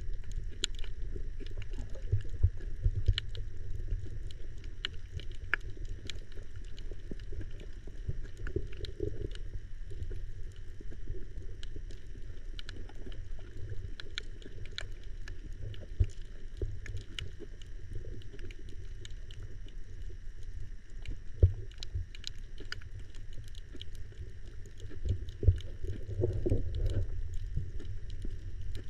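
Underwater ambience recorded by a camera below the surface: a muffled low rumble of moving water with many scattered sharp clicks, and a few louder knocks in the second half.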